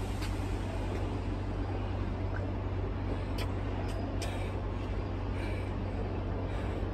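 Steady low rumble of background street traffic, with a few faint taps.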